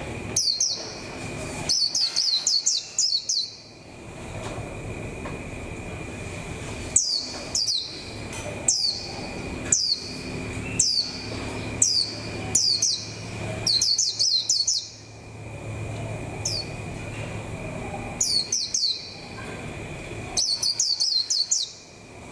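Caged white-eye calling: quick runs of short, high notes, each sliding downward, in bursts every second or two.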